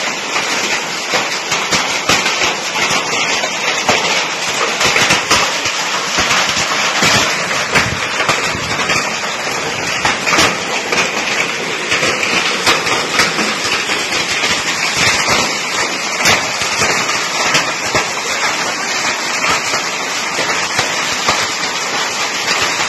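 Heavy hailstorm: hailstones clattering thickly on the street and the corrugated roof sheet overhead, a dense crackle of sharp hits over the steady rush of heavy rain.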